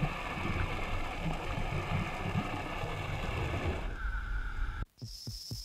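Muffled underwater rumble and gurgling picked up by a camera in a dive housing. About four seconds in it changes briefly to a steady hum, then cuts off, and music with a fast regular beat starts.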